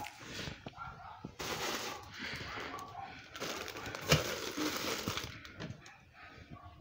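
Plastic-wrapped toilet paper and paper-towel packs being handled and pushed into a cupboard: crinkling plastic wrap and shuffling, with a sharp knock about four seconds in.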